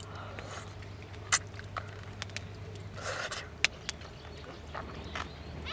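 Eating noodles with metal chopsticks from a bowl: a short slurp about three seconds in and a few sharp clicks of the chopsticks against the bowl, over a steady low hum.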